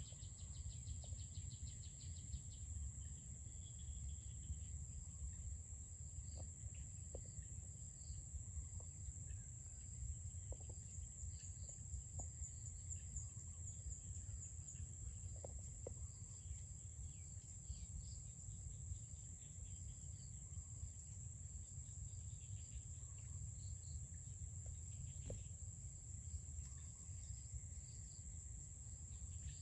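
Steady high-pitched insect trill, such as crickets, running without a break, over a low rumble, with faint bird chirps scattered through.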